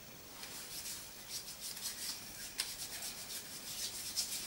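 Hands rubbing together to work in hand cleanser: a rapid run of short, hissy rubbing strokes that starts about half a second in.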